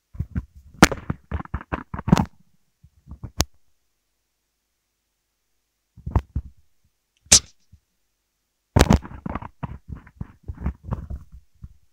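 Microphone handling noise while a handheld microphone is passed over and swapped because it was not carrying the voice well: irregular bumps, knocks and clicks that come in clusters, with silent gaps between. There is a dense run in the first two seconds, a few single clicks in the middle, and another dense run near the end.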